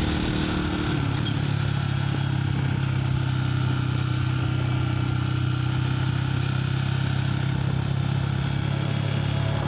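Yamaha Vixion motorcycle's single-cylinder four-stroke engine running at an even, steady speed while riding.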